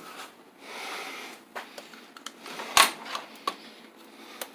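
Metal tool chest being handled: a soft sliding sound, then a sharp metal clack about three seconds in, the loudest sound, followed by a few lighter clicks.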